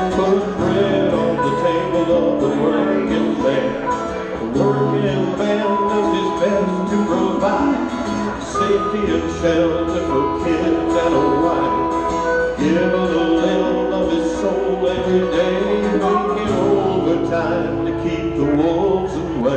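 Live band music: electric and acoustic guitars strummed with harmonica over a steady bass line.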